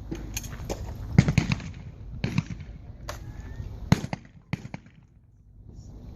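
Trap shotguns firing, a string of sharp reports at uneven spacing. The loudest come a little over a second in and about four seconds in, with fainter shots between them, some likely from further off.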